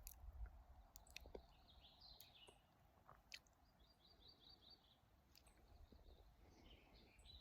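Near silence with faint bird calls: scattered high chirps, and a short run of about six quick repeated notes a little past the middle, with a few faint clicks.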